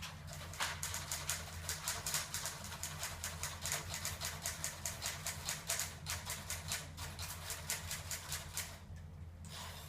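Typewriter keys struck in a fast, uneven run of clacks, stopping about nine seconds in, over a steady low hum.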